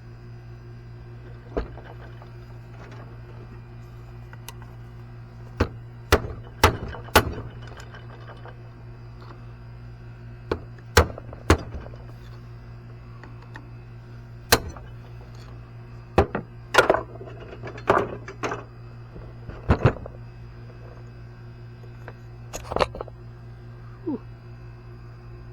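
Irregular sharp knocks of hand tools on the ATV part being worked free, about a dozen in all, several in quick pairs and clusters, over a steady low hum.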